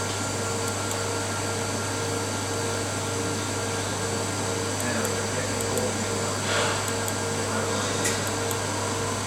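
Steady fan-like hum of powered-up workshop equipment, with a constant low electrical drone and a faint pulsing tone; a brief faint murmur and a small click come near the end.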